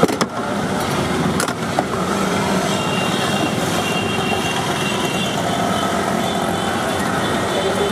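Steady street traffic noise, with a couple of sharp clicks in the first two seconds.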